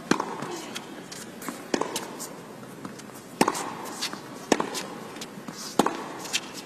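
Tennis ball struck by rackets in a baseline rally: a serve, then sharp pops about every second and a half, five in all, with fainter ticks between.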